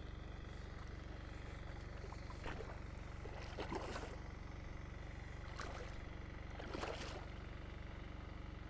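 A hooked carp splashing and thrashing at the water's surface close to the bank, in four short bursts about a second apart from a couple of seconds in, over a steady low hum.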